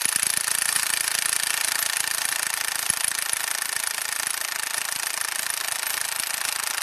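ONEVAN 3100 Nm brushless cordless impact wrench running on its speed 3 setting, hammering without a break on a nut of a rusted wheel hub. It makes a fast, steady rattle of impacts.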